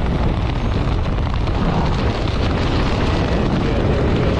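Wind buffeting the camera microphone during a tandem parachute descent under an open canopy: a loud, steady, deep rushing noise with no breaks.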